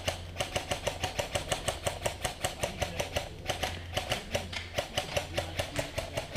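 Airsoft guns firing on full auto in long, nearly unbroken bursts: a rapid, even clicking.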